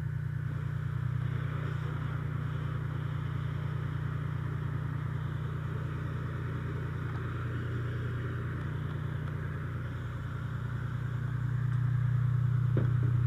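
Fire engine's motor running steadily to drive its pump, a low hum that grows louder near the end, under a steady hiss of hose spray.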